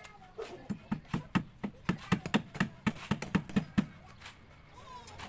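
Hammer blows on wooden concrete-column formwork: a quick, regular run of about fourteen strikes at roughly four a second, stopping about four seconds in.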